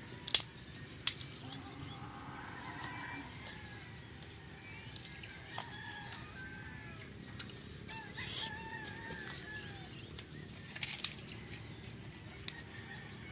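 Birds calling with short repeated chirps, busiest in the middle of the stretch, over a low hiss, and a few sharp snaps of dry twigs being broken and arranged for a small fire, the loudest near the start and again near the end.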